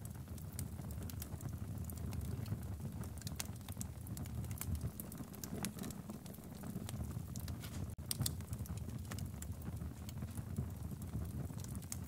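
Wood fire burning in a fireplace: irregular crackles and pops from the logs over a low, steady rumble of the flames.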